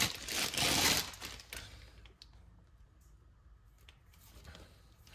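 Plastic packaging on large steel wrenches crinkling as it is handled, loudest in the first second or so. Then a few light clicks and taps as the wrenches are moved.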